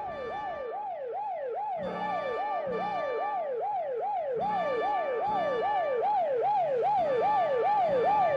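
Police car siren wailing in a fast rise-and-fall, about two and a half sweeps a second, growing louder as the cruiser closes in behind the car.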